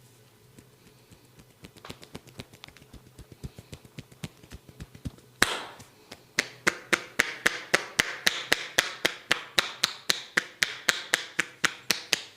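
Percussive massage strokes: hands tapping rhythmically on the body, softly and quickly at first, then from about halfway in turning into loud, even slaps about four a second.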